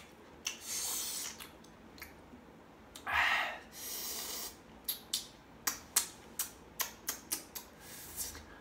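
Mouth sounds of someone eating crunchy, very sour green ambarella dipped in chili salt. There are a few breathy hisses, then a louder gasp about three seconds in. From about five seconds in comes a quick run of about ten crisp clicks and smacks from chewing.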